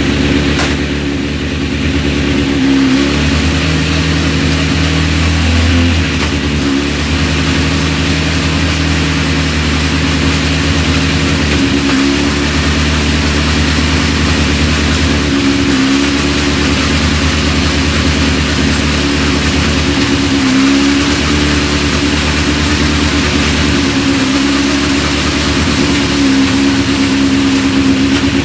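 Honda CBR1000RR Fireblade's inline-four engine running steadily, with a brief dip and change in its note every four or five seconds as it is clicked through the gears with the chain off, so that a gear indicator can learn each gear.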